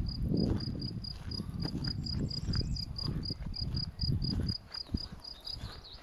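An insect chirping steadily in short high pulses, about four a second, over low rustling thuds that fade near the end.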